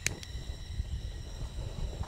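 Wind buffeting the microphone: an uneven low rumble, with one sharp click right at the start.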